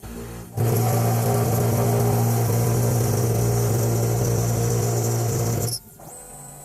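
CNC machine running steadily while cutting a plastic enclosure, a constant low hum with a hiss above it. It starts abruptly about half a second in and cuts off sharply near the end.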